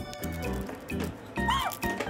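Background music with a steady repeating beat.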